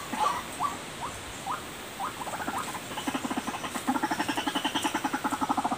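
White-breasted waterhen (ruak-ruak) calling: a few short notes about two a second, then a fast, even pulsing chatter from about two seconds in that grows louder near four seconds in.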